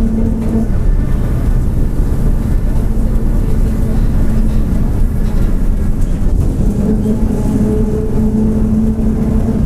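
Mercedes-Benz OF-1722M city bus running under way, its engine and road noise steady. Over the noise the differential drones (roncando) with a steady hum that is strong at first, fades by the middle and comes back about two-thirds of the way through.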